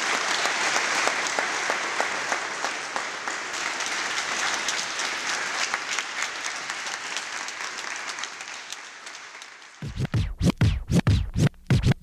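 Large audience applauding: dense clapping that slowly fades over about ten seconds. Near the end a hip-hop beat with bass thumps and record scratching starts.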